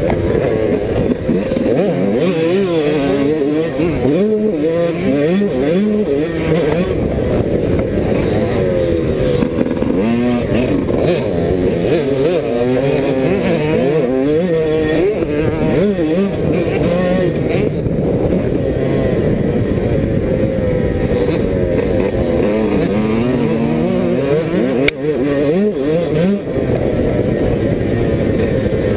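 Yamaha YZ125 single-cylinder two-stroke motocross engine heard close up from a camera mounted on the bike's front, revving hard and easing off again and again as the rider accelerates, shifts and brakes around the track.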